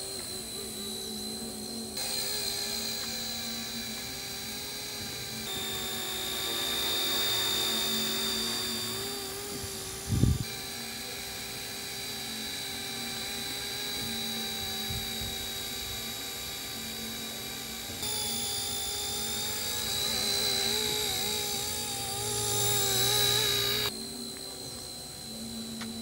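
A small homemade remote-control helicopter's motor and rotor whining steadily in flight, the pitch wavering as it manoeuvres and jumping abruptly several times. There is one short thump about ten seconds in.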